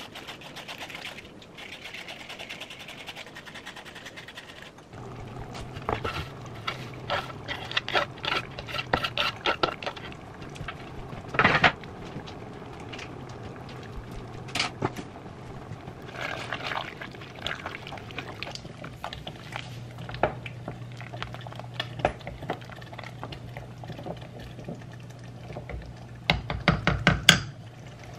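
A vegetable peeler scraping shreds off a carrot. Then kitchen clatter: sharp clicks and knocks from utensils and pots over a steady low hum, with a louder cluster of knocks near the end.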